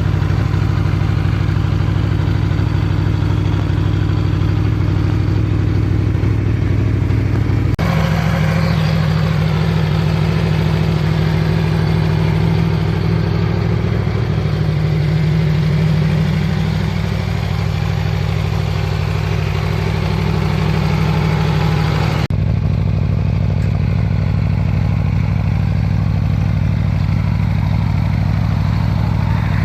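Aprilia Tuono V4 motorcycle engine idling through its exhaust, in separate recordings that cut abruptly twice, the tone changing at each cut. In the middle take the engine speed rises slightly partway through, then settles.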